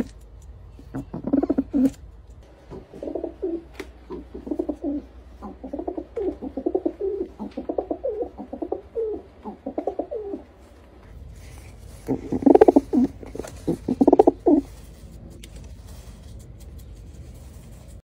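Pigeon cooing: a long run of low coos, a short pause, then a louder group of coos.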